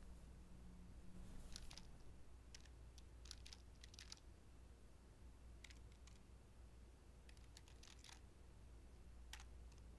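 Faint typing on a laptop keyboard: soft key clicks in short, irregular runs with pauses between, over a low steady room hum.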